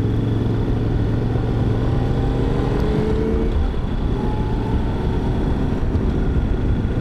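Yamaha Ténéré 700's parallel-twin engine pulling under acceleration, its note rising steadily, then breaking off about halfway through. After that, wind and road noise take over.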